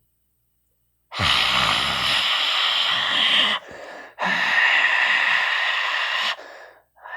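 A person imitating white noise with their mouth: long, loud breathy hisses, two of them a couple of seconds each with a short pause for breath between, and a third starting near the end.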